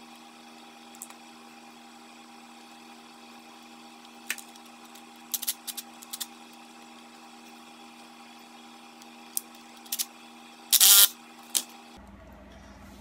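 Scattered clicks and clinks of a nut driver tightening a worm-gear hose clamp on a silicone intercooler-pipe coupler, with one louder short clatter near the end, over a steady hum.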